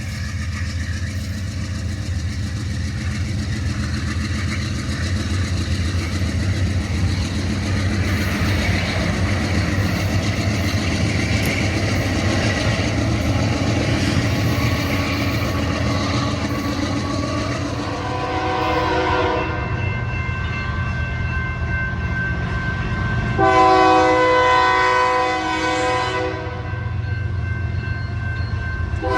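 A locomotive horn sounds twice over the continuous rumble and wheel clatter of a moving train: a shorter blast about 18 seconds in, then a longer, louder one about 24 seconds in.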